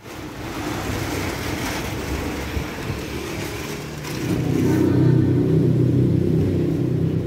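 A motor vehicle engine running amid street noise; about four seconds in it grows louder and settles into a steady hum.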